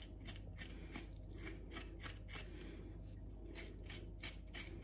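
Small knife blade scraping the skin of a flamed lamb trotter in quick, even strokes, about four a second, taking off the burnt hair and black bits. Faint.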